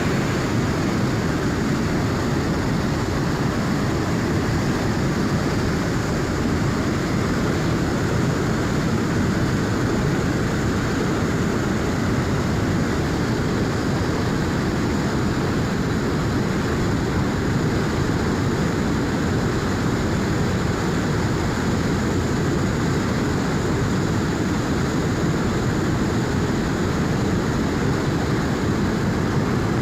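River in high flow, water rushing steadily with a deep, even noise that does not change.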